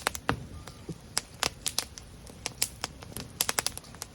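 Wood fire of lacquer-tree firewood crackling, with irregular sharp pops and snaps.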